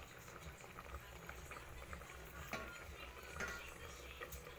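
Fish with ginger and onion simmering in a stainless steel pot: faint bubbling and crackle, with a few light clicks past the middle.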